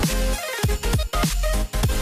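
Electronic background music with a heavy bass line and a fast, steady drum beat.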